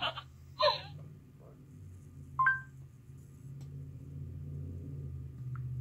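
Low steady motor hum from the Hasbro animatronic The Child toy moving its head, growing a little louder in the second half. A brief vocal sound comes just under a second in, and a short electronic two-tone beep about two and a half seconds in.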